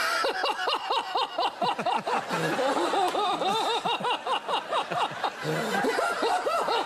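A man's deliberately forced, joyless laugh: a rapid run of short, high 'ha-ha' pulses, several a second, breaking off briefly twice.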